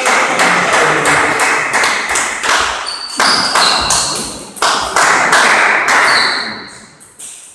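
A rapid clatter of sharp taps and knocks echoing around a large hall, with a couple of short high pings from a table tennis ball bouncing, about three and six seconds in.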